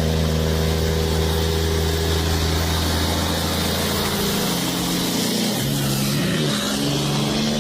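Car engine running at a steady pitch; about five seconds in its pitch drops and swings before settling again at a new steady pitch, as with a gear change.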